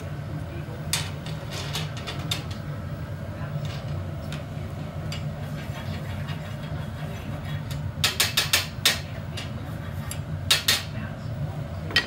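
Steady low hum of hot shop equipment, with sharp metallic taps and clinks of glassblowing hand tools against the steel pipe: a few scattered, then a quick run of about six about two-thirds of the way in, and a couple more near the end.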